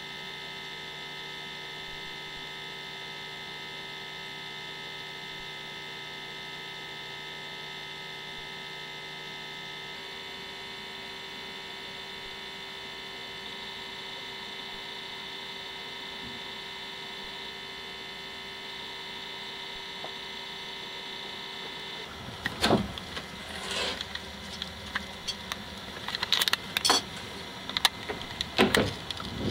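Steady electrical hum with faint whining tones. About 22 seconds in, loud irregular rumbling and crackling bursts take over: wind and handling noise on a handheld camcorder's microphone.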